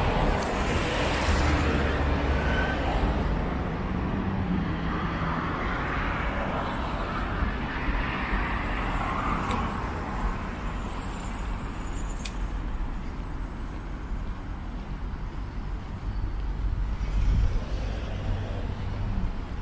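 Outdoor city ambience: road traffic running steadily in the background, with a constant low hum and a few swells as vehicles go by.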